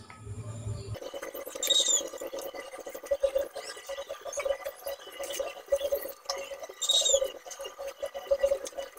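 Close-up eating sounds: chicken-foot soup broth slurped from a metal spoon, with wet, irregular smacking and chewing sounds.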